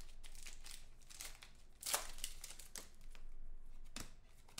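Shiny foil trading-card pack wrapper crinkling and tearing as it is opened by hand, in irregular crackles with the loudest one about two seconds in.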